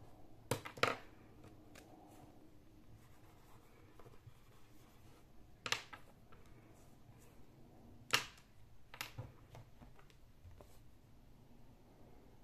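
Whiteboard markers and a small handheld whiteboard being handled: about five sharp clicks and knocks, two close together about half a second in, the others near the middle and later, over faint room tone.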